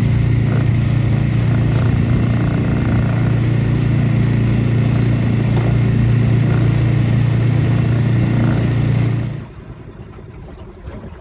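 Suzuki DF6A 6 hp four-stroke outboard, new and still being broken in, running steadily under way on a jon boat while fed from an external fuel tank. Its sound drops away suddenly about nine seconds in.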